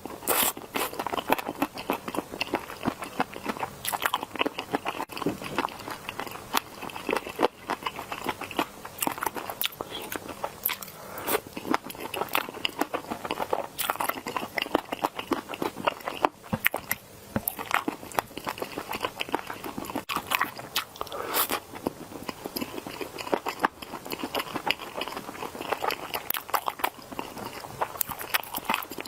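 Close-miked biting and chewing of crunchy food: a continuous run of sharp crunches and crackles with short pauses between bites.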